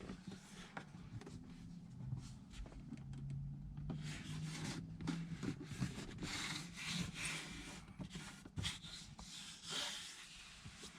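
Faint rubbing from fingers pressing and smoothing a vinyl sticker onto a surface to work out its bubbles, with scattered small clicks of handling. The rubbing is densest through the middle of the stretch.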